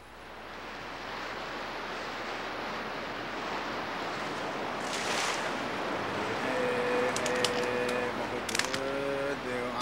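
Steady rush of ocean waves and wind that fades in and grows louder, with a brief brighter rush about five seconds in. About six and a half seconds in, a chant begins in long held notes that step in pitch, and a few sharp clicks sound under it.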